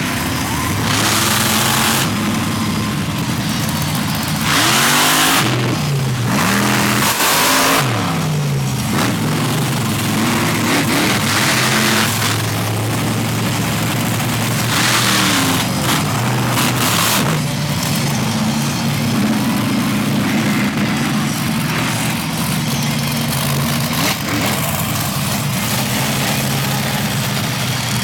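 Monster truck engines idling with a steady drone and revved hard several times, with loud bursts of a second or two. The pitch sweeps up and down repeatedly from about four to nine seconds in.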